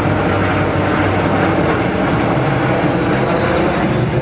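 Formation of seven Aero L-39 Albatros jets flying past with their turbofan engines running: a loud, steady jet roar.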